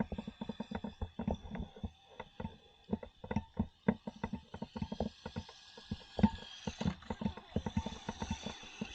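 Traxxas Slash RC car running on hard 3D-printed plastic drift tires: a rapid, irregular clatter of short knocks as the plastic tires and chassis skid and bang over the surface, with a faint steady high whine underneath.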